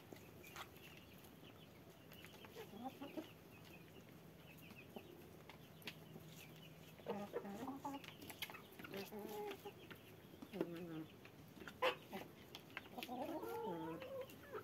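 Hens clucking and making short, wavering calls while they feed, with a longer call near the end. A few sharp taps sound among them, the loudest about twelve seconds in.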